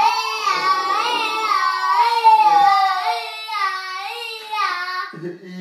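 Electronic siren of a toy fire engine sounding, a wavering tone that rises and falls about twice a second over a slower tone sliding downward. Near the end it changes to a steady, lower tone.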